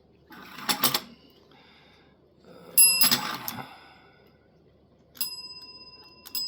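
A small bell struck twice by a cat's chin, the cat's signal for another piece of food. The strikes come about three seconds in and a little after five seconds in, and the second rings out clearly for about two seconds. A brief clatter comes about a second in.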